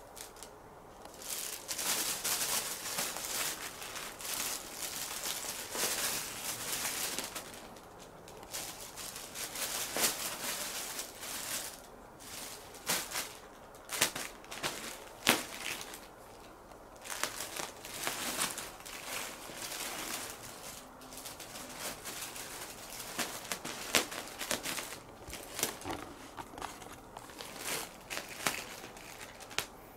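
A thin plastic shopping bag crinkling and rustling in irregular bursts as cats push their heads into it and paw at it, with sharper crackles and a few short pauses.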